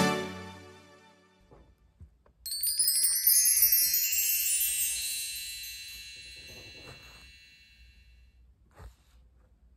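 A sparkling wind-chime sound effect: a shimmering cascade of high bell-like tones that comes in suddenly about two seconds in and rings away over several seconds. Faint taps from handling the card coaster sound underneath.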